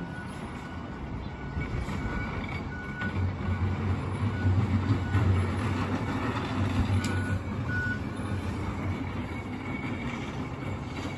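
Garbage truck engine running as the truck manoeuvres, its low rumble growing heavier for several seconds in the middle, with a backup alarm beeping in short, uneven pulses.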